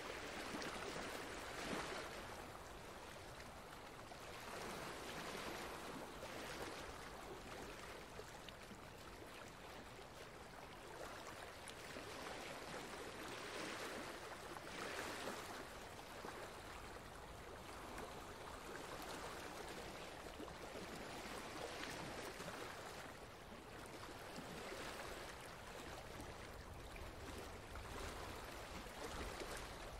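Faint, steady running-water ambience like a flowing stream, swelling and easing gently every few seconds.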